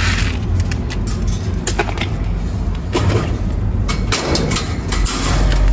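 Wire mesh rabbit cage rattling and clinking in a rapid run of short metallic clicks as it is handled to catch a rabbit, over a steady low rumble.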